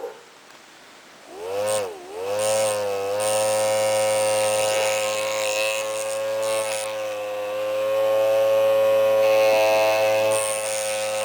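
Miniature five-port PVC air raid siren spun by a 9-volt electric motor, starting up about a second in. Its pitched whine sags and recovers near two seconds in, then holds a steady tone.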